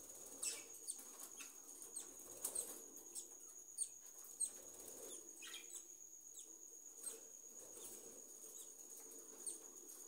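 Newborn parrot chick peeping faintly while being hand-fed: many short, high, downward-sliding chirps at irregular intervals, thinning out in the second half. A faint steady high whine runs underneath.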